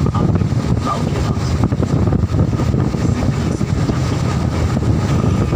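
Wind buffeting the microphone over the road noise of a moving vehicle: a loud, steady low rumble.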